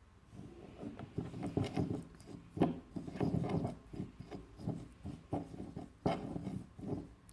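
A spoon stirring and scraping a paste of ground cumin and olive oil in a bowl, in irregular repeated strokes, with a couple of sharper knocks of the spoon against the bowl.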